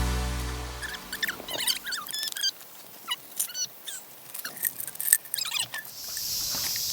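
Background music fades out in the first second, followed by a scatter of short, high chirps and squeaks. Near the end a steady, high-pitched insect chorus sets in.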